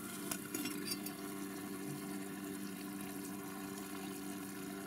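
Pot of broth and pasta heating on a camp stove toward a boil: a steady hiss with a low hum underneath, and a few faint clicks near the start.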